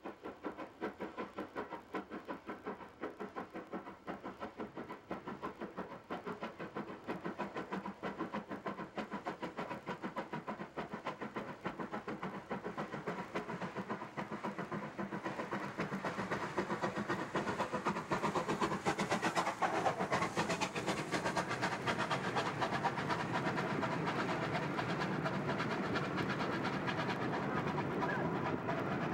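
Southern Railway Merchant Navy class Pacific 35028 Clan Line working hard, its three-cylinder exhaust beat slightly uneven and quickening as it grows louder on approach. It is loudest as the engine passes, then the coaches follow with a steadier running noise and rail clatter.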